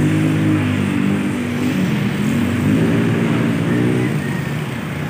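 A steady engine or motor hum over continuous background noise, its pitch dipping and rising again about midway and falling near the end.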